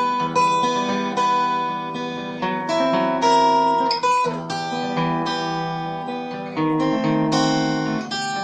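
Acoustic guitar played fingerstyle: a melodic phrase of plucked single notes and chords, each ringing on into the next. The player notes that the guitar is out of tune.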